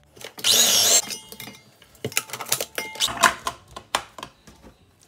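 Electric mini food chopper pulsed once, its motor whirring for about half a second as the blade chops minced meat. Then comes a run of plastic clicks and knocks as the chopper's lid and bowl are handled.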